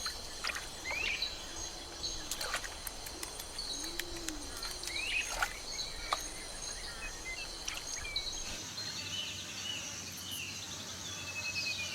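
Wetland ambience: insects trilling steadily, with scattered short bird chirps and calls and a couple of low calls a few seconds in.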